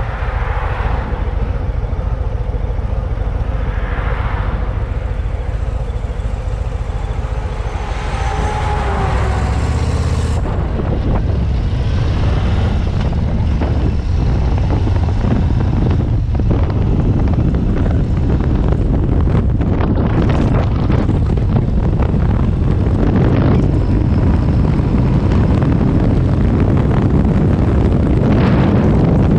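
Harley-Davidson's Milwaukee-Eight 117 V-twin engine running under way, mixed with wind rushing over the action camera's microphone. The sound grows louder about ten seconds in as the motorcycle speeds up onto the open road.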